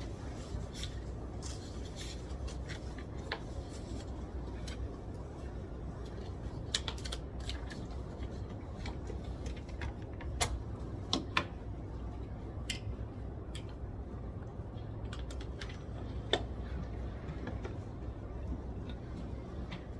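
Library study-room ambience: a steady low rumble with scattered small clicks and taps from people working at desks, a few sharper ones about ten, eleven and sixteen seconds in.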